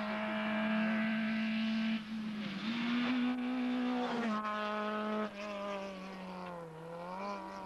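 Talbot Samba Rallye rally car's engine held at high revs under full throttle, a steady buzzing note that jumps abruptly in pitch a few times and wavers near the end.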